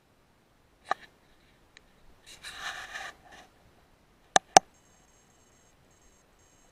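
Handling of a PARD DS35-70 LRF digital rifle scope: a click and a brief rustle, then two sharp button clicks in quick succession. After them a faint, high-pitched electronic whine comes and goes as the laser rangefinder takes a distance reading.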